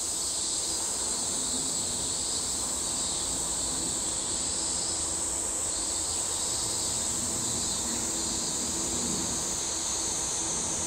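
Steady high-pitched drone of summer cicadas, the loudest sound throughout. A faint low rumble builds in the last few seconds as a train approaches through the tunnel.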